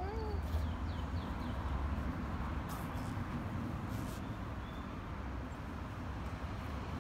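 Outdoor background sound: a steady low rumble, with a short rising-and-falling call right at the start and a few faint chirps and light clicks scattered through.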